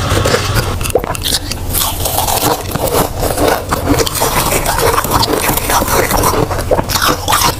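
Close-up crisp crunching of flavoured freezer frost being bitten and chewed, then scraped and grabbed by hand from the frost-packed freezer walls and board; dense crackling with many small sharp clicks throughout.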